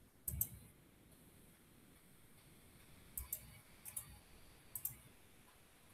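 Computer mouse clicking, four short faint clicks: one just after the start, then three more about a second apart in the second half, some heard as a quick double tick.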